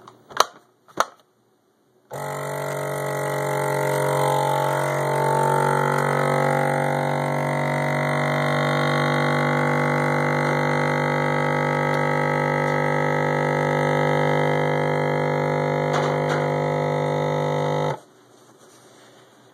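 Vacuum sealer's pump running steadily for about sixteen seconds, a strong low hum, drawing the air out of a bag before the seal. It starts suddenly about two seconds in and cuts off shortly before the end.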